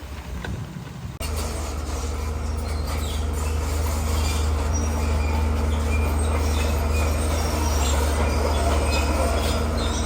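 Bulldozer's diesel engine running steadily with its steel crawler tracks squealing and clanking. The sound comes in suddenly about a second in.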